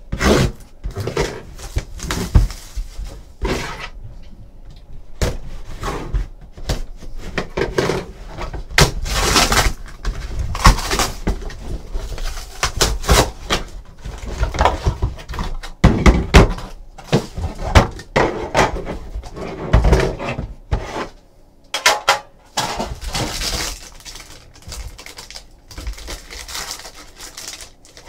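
A sealed Upper Deck Quantum football card box being opened: a box cutter slitting its shrink wrap, then the cardboard lid and flaps pulled open and the contents lifted out. Irregular rustling, scraping and tearing, with knocks of cardboard on the table.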